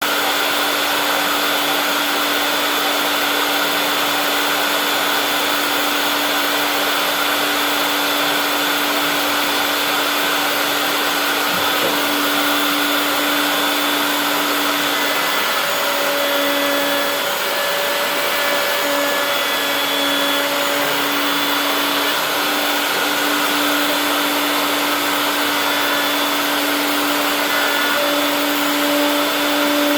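Router mounted in a router table, its motor running steadily at high speed: a constant whine over a rushing noise.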